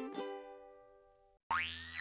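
Cartoon theme music: a quick plucked-string jingle ending on a chord that rings out and fades. About one and a half seconds in, a sudden cartoon sound effect slides up in pitch.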